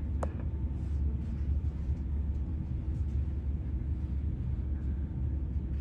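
Steady low rumble of a Sounder commuter train and freight locomotives passing, with a faint brief click about a quarter-second in.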